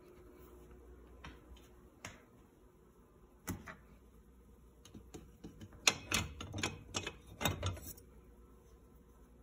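Knives being handled in a wooden knife block on a kitchen counter: a few scattered light clicks, then a quick run of louder sharp clacks from about six to eight seconds in.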